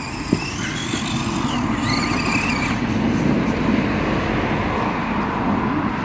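Small electric motor and gears of an Axial SCX24 1/24-scale RC rock crawler whirring as it drives, with short rises and falls in pitch in the first half, over a steady low rumble.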